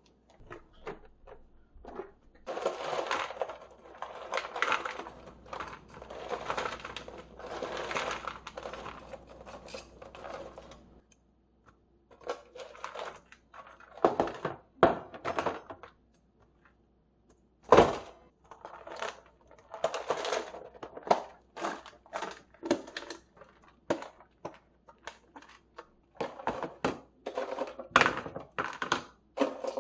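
Plastic containers and frozen food packages being handled and packed into a freezer. A long stretch of crinkling and rustling comes first, then scattered knocks and clatters of containers being set down.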